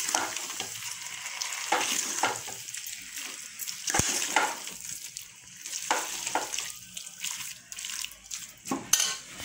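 A steel ladle stirring and scraping boiled potato pieces through fried masala in a metal pot, over a light sizzle of hot oil. One sharp knock about four seconds in.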